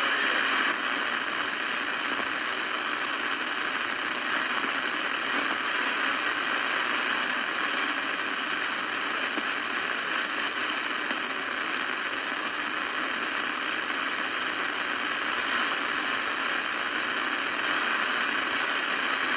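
CB radio receiver hissing with steady static between skip transmissions, the narrow, tinny band of radio audio through the set's speaker, easing off slightly about a second in.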